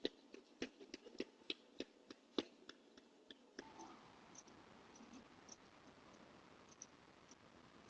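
Near silence: faint scattered clicks over the first three and a half seconds, then a faint steady hiss.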